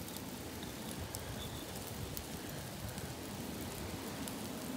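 Charcoal fire under a spit-roasted rabbit, a steady hiss with scattered faint crackles.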